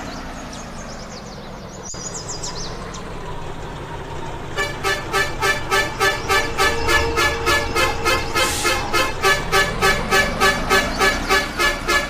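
Electronic music with a steady pulsing beat of chord stabs. The beat drops back for the first few seconds, then returns in full about halfway through.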